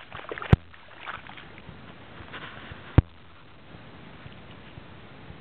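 Snowshoe steps crunching and sloshing through wet, slushy snow on river overflow, with two sharp knocks about half a second and three seconds in. After the second knock only a steady faint hiss remains.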